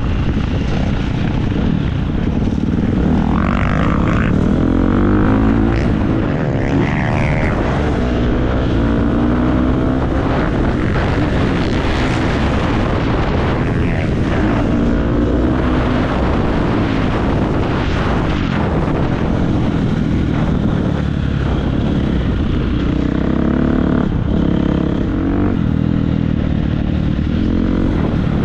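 2017 Husqvarna FC350 single-cylinder four-stroke motocross engine being ridden hard, revving up and dropping back again and again through gear changes, with a few short knocks along the way.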